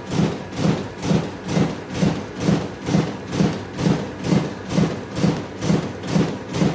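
Riso CZ 180 digital duplicator running a print job, its drum cycling and feeding sheets with a steady rhythmic clatter of about two strokes a second.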